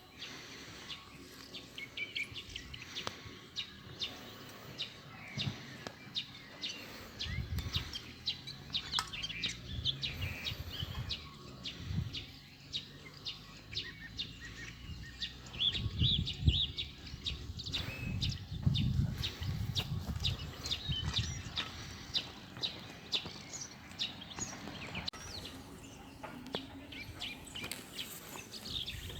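Small songbirds chirping and twittering outdoors throughout. There are several brief low rumbles in the middle stretch.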